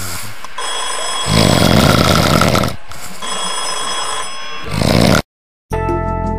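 A person snoring: a long loud snore about one and a half seconds in and a shorter one near five seconds, with quieter breaths between, over steady high tones. The sound cuts off suddenly just after five seconds, and music begins half a second later.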